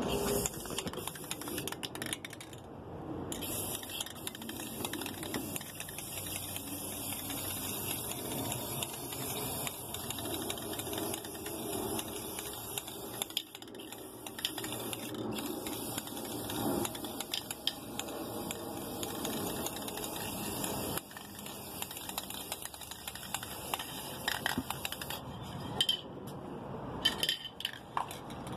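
An aerosol can of clear spray paint hissing: a short burst, then a long spray with brief breaks, stopping about 25 seconds in, as the can runs nearly empty. A few sharp clicks follow near the end.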